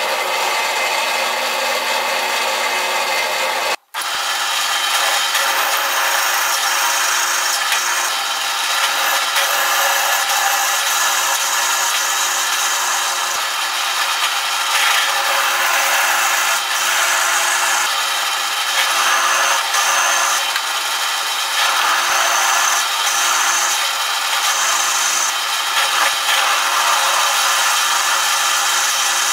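Drill press running, its bit cutting into steel square tubing with a steady, noisy cutting sound. The sound cuts out for an instant about four seconds in.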